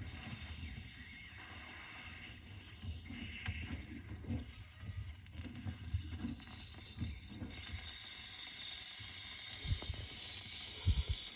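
Faint handling noises as a screwdriver takes out the small screw holding the handle of a multi-turn water shutoff valve and the handle is worked loose, with a couple of light knocks near the end.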